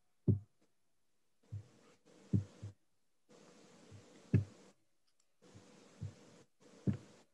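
Quiet room tone from a webcam microphone: a faint hiss with a low hum that cuts in and out, and several short soft thumps, the loudest about a third of a second in and again near the middle.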